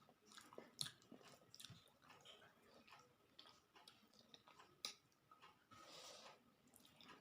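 Faint close-up chewing of a mouthful of rice with lote macher jhuri (Bombay duck fry): soft wet mouth clicks and smacks at irregular moments.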